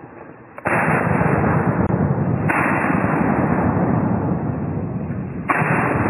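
Loud, rough handling and brush noise on the camera microphone as the hunter pushes through dense undergrowth. It starts abruptly about half a second in, stays loud, and jumps up sharply again twice, about two and a half and five and a half seconds in.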